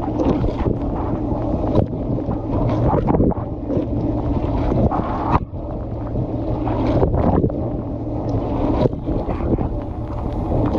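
Water spraying and splashing against the camera inside a running dishwasher during its wash cycle, in irregular gushes over a steady low hum of the wash pump.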